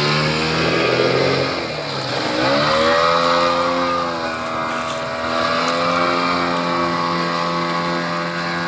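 Yamaha 40 hp outboard motor pushing a speedboat under way: it eases off about two seconds in, revs back up, and then runs steadily at speed.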